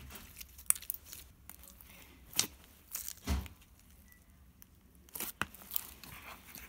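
Soft slime being scooped and pulled apart by hand: scattered small crackles and sticky tearing sounds, with a dull knock about three seconds in.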